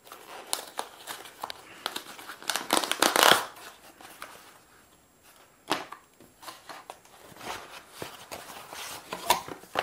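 Cardboard mailer being torn open along its tear strip, a run of ripping and crinkling loudest about three seconds in, then cardboard and paper rustling as the flaps are pulled apart.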